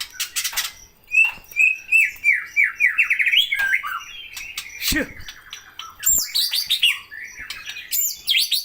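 A songbird singing a long, varied song of quick runs of short descending notes, with a brief low downward-sliding note about five seconds in.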